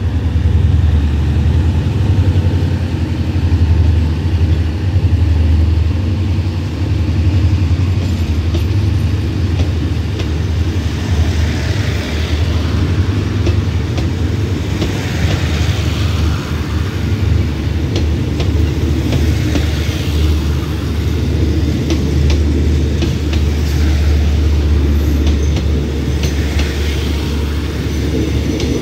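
Passenger train pulling out, its coaches rolling past close by: a low steady drone under a rush of wheel-on-rail noise that swells and fades every few seconds as each coach passes, with light clicks of wheels over the rail joints from about a third of the way in.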